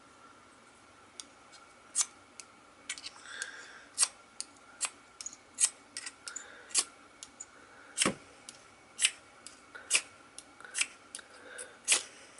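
UST SparkForce fire starter: the steel striker scraped sharply down the ferrocerium rod again and again, roughly once a second, throwing sparks onto tinder.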